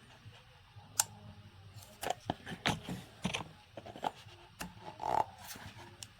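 Scattered light clicks and knocks, about a dozen, of parts being handled as an oil filter cartridge is fitted into its housing.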